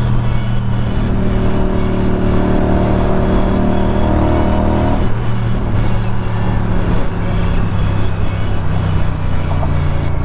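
Motorcycle engine running at a steady, even pitch while cruising, heard from the rider's position. For a few seconds near the start a higher steady hum sits over it.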